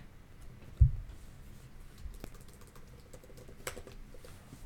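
Computer keyboard typing: faint, scattered key clicks as a short placeholder word is typed. There is one low thump about a second in.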